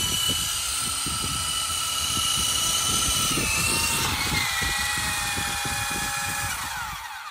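Small battery-powered RC helicopter's electric motor and rotors running with a steady whine over a gusty low rumble. The whine drops in pitch in steps a little past halfway, then winds down and stops near the end.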